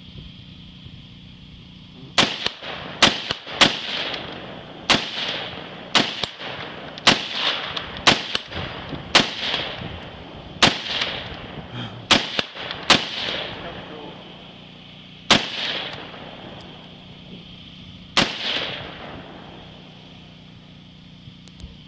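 5.56 rifle firing tracer rounds in slow single shots, about fourteen in all, starting about two seconds in, each shot trailed by a long rolling echo. The shots come roughly one to two seconds apart at first, then two more spaced a few seconds apart near the end.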